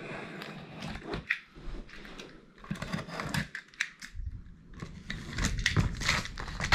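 Irregular handling noises: rustling and scraping with scattered light clicks and knocks.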